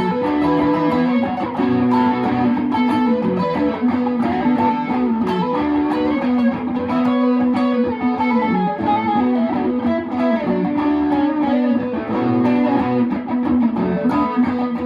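Electric guitar playing a continuous line of plucked notes and chords, returning again and again to a held low note.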